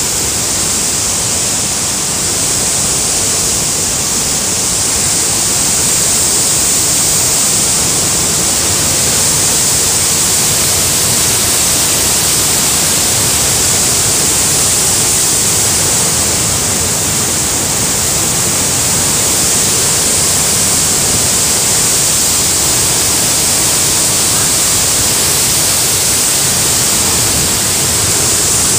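Muddy floodwater pouring down a rock face and churning below in a torrent: a loud, steady rushing noise.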